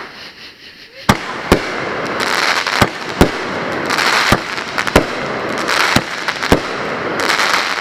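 Multi-shot consumer firework cake firing: after a short lull about a second in, about eight sharp bangs of shells bursting, with crackling stretches between them.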